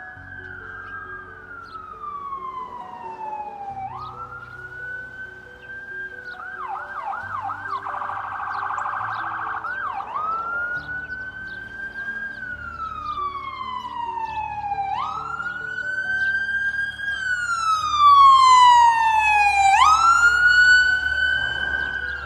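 Emergency vehicle siren wailing, its pitch rising and falling slowly about every five seconds, with a brief switch to a fast warble about seven seconds in. It grows louder near the end.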